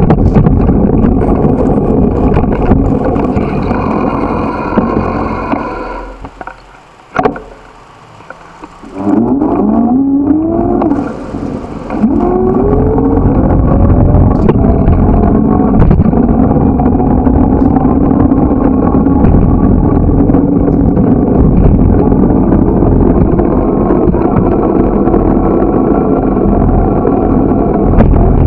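Wind and road rumble on the microphone of a moving bicycle, with a vehicle engine running under it. The noise drops away for a few seconds as the bike slows to a stop, then an engine's pitch rises twice in quick succession as the truck ahead accelerates away through its gears, and the steady rumble returns once the bike is rolling.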